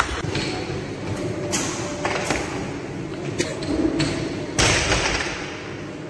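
Barbell with rubber bumper plates knocking and thudding during an Olympic lift, with the loudest thud about four and a half seconds in as the bar is dropped from overhead onto the lifting platform.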